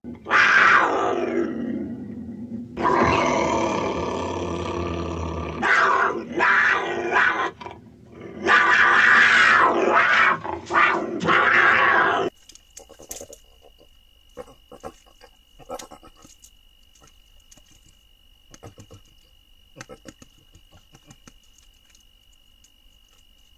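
A cougar calling: a series of loud, harsh, drawn-out calls, the first falling in pitch, which stop abruptly about twelve seconds in. Then come a collared peccary's much quieter short grunts and clicks.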